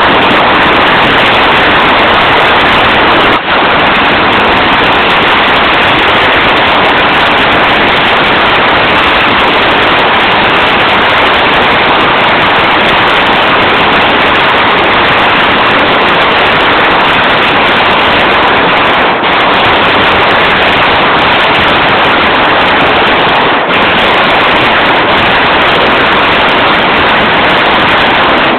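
A long string of firecrackers going off nonstop, the bangs merging into one dense, loud crackle that overloads the recording, with a few brief dips.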